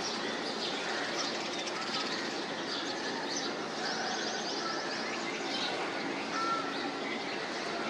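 Several birds chirping and calling at once, short high notes and brief trills overlapping throughout, over a steady outdoor background hiss.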